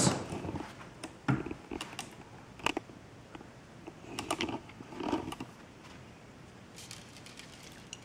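Handling noise: a few light clicks and soft knocks scattered through the first five seconds, then quiet room tone.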